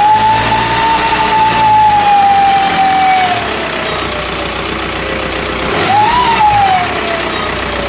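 1999 Volkswagen ALH 1.9 TDI diesel engine running with a loud whistle whose pitch follows the revs: held high at first, sliding down from about three seconds in, then swooping up and falling away again near six seconds. The owner suspects the turbo is making the whistle.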